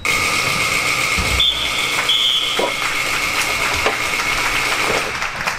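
Indoor soccer arena's game buzzer sounding one long, steady, loud blast that starts abruptly and eases off about five seconds in, marking the end of the half.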